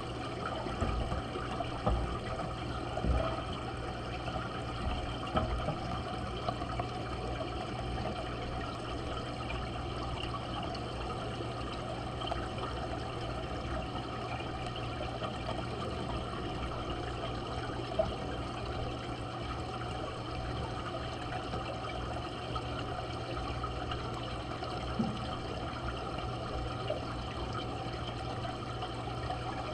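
Steady running and bubbling water in a large aquarium, with air bubbles rising from a stone and the surface churning, over a low steady hum. A few light knocks, the sharpest about 18 s in.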